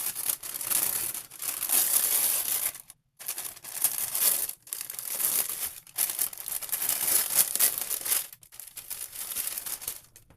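Gift wrapping paper crinkling and crumpling as a present is unwrapped by hand, in several bursts with short pauses, stopping shortly before the end.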